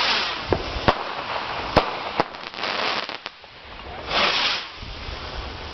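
Consumer fireworks going off: a few sharp bangs and pops mixed with bursts of hissing, the loudest hiss about four seconds in.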